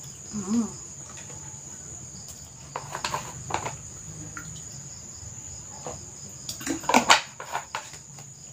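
Drinking from a plastic bottle: a few gulps about three seconds in, then a cluster of clicks and knocks from the plastic bottle being handled and put down, the loudest part, about seven seconds in. A steady high-pitched tone runs underneath, and there is a short closed-mouth 'mm' near the start.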